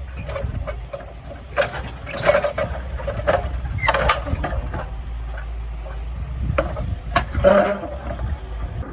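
Excavator diesel engine running steadily, with irregular metallic clanks and short clusters of knocking and scraping from the hydraulic breaker working rock.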